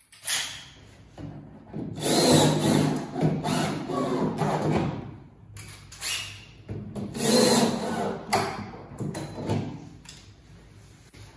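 Power drill running in two main bursts of about three seconds each, with shorter bursts between, driving screws.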